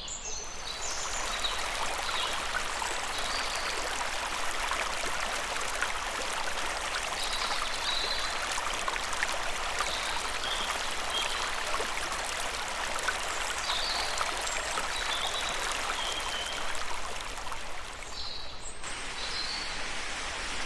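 A stream or small waterfall rushing steadily, with a few faint short high chirps over it. Near the end the rush changes abruptly to a slightly quieter, different texture.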